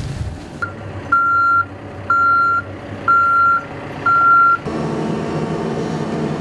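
Backhoe's reversing alarm beeping over its running engine: a short first beep, then four steady high beeps about one a second, each lasting about half a second. After the beeps stop, about three-quarters of the way in, the engine rumble gets louder and steady.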